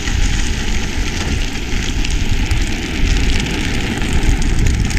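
Loud, steady rushing noise of a drift trike in motion: the hard plastic-sleeved rear wheels rolling and sliding over rough asphalt, mixed with wind rushing past the camera microphone.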